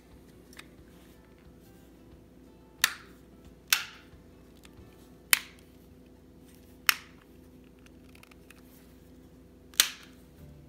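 Plastic snap tabs of a TV remote's case clicking into place as the top shell is pressed back on: five sharp clicks, irregularly spaced over several seconds.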